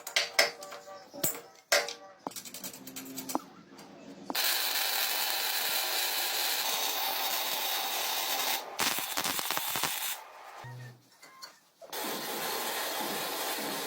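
Small metal clinks and knocks for the first few seconds, then long stretches of steady abrasive rubbing noise, typical of sanding or scouring a part during engine restoration, broken by a brief pause.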